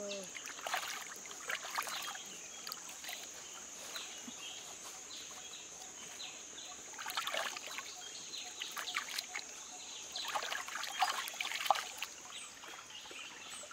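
Hands splashing and dipping duck eggs in a shallow running stream, in several short bursts of splashing. A steady high-pitched drone runs underneath.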